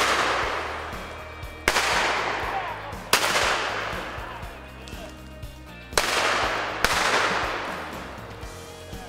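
Five gunshots fired at squirrels up a tree, each with a long echoing tail that fades over a second or more; the last two come less than a second apart.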